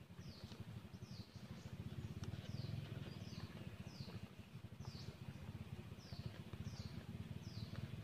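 A bird repeating a short, high, downward-sliding chirp about every two-thirds of a second, over a low rumbling background noise.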